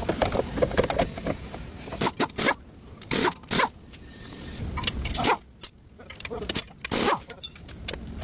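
Hand tools and metal parts clinking, clanking and scraping: a string of separate sharp knocks and clicks, a few with a short metallic ring.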